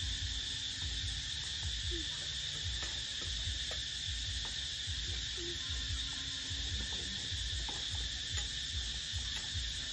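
Steady chorus of insects, crickets or similar, trilling at two high pitches over a low rumble, with a few faint short calls.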